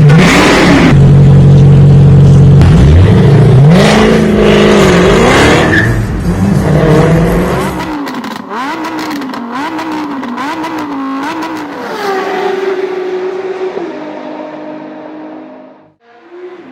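Dodge Challenger SRT Super Stock's supercharged 6.2-litre HEMI V8 running loud through its opened valved exhaust, revving up and down; about eight seconds in the deep rumble suddenly drops away, leaving a thinner wavering engine note that holds, then fades out near the end.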